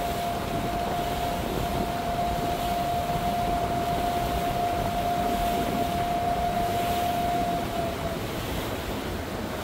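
Regal motorboat running under way, a steady rush of engine and water with a steady whine over it that dips slightly in pitch about eight seconds in.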